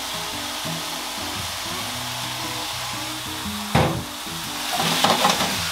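Mixed mushrooms sizzling steadily in butter in a frying pan as miso sauce is added. A single sharp knock comes a little before four seconds in, then louder stirring and scraping near the end.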